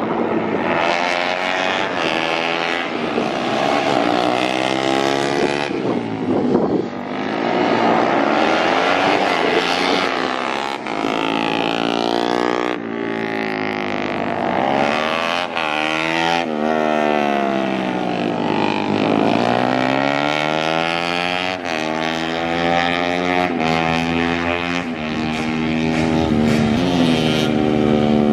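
Small road-race motorcycle engine revving hard and easing off again and again as the bike laps the circuit, its pitch climbing and falling over and over.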